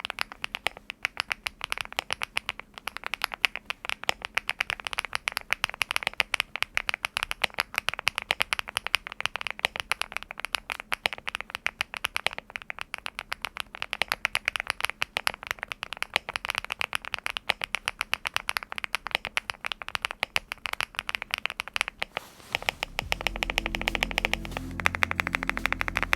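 Fast, continuous typing on a LEOBOG Hi75 full-aluminium mechanical keyboard with lubed HMX Xinhai linear switches: a dense run of key clacks with a foam-damped 'thock'. Background music comes in under the typing about three seconds before the end.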